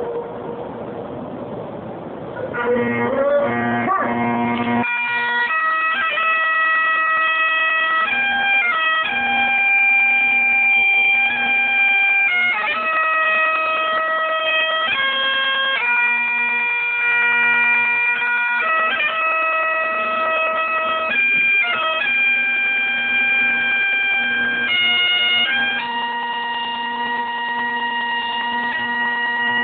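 Bagpipes playing a slow tune over their steady drone. The pipes strike up with a rising swell about three seconds in, then move from one held note to the next.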